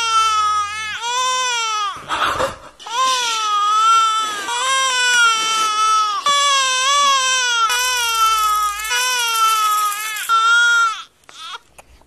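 A baby crying: a run of high wailing cries, broken by one sharp gasping breath about two seconds in, that stops about a second before the end.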